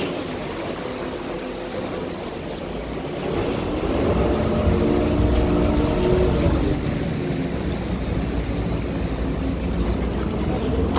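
Motorboat engine running under way, with the rush of water and wind over the boat. It swells louder about three and a half seconds in and stays loud.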